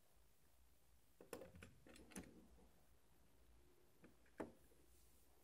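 Faint clicks and light knocks from a replica pistol being handled on a wooden tabletop: a quick run of clicks a little over a second in, then two sharper clicks about four seconds in, the second the loudest.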